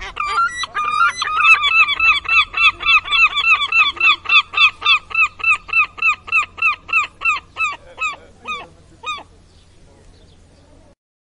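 A seagull calling in a fast run of short yelping notes, about four a second, that spread out and fade near the end, over a low steady hum.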